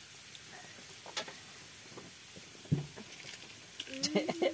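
A few light clicks and a soft knock over a faint steady hiss, with a short burst of voice near the end.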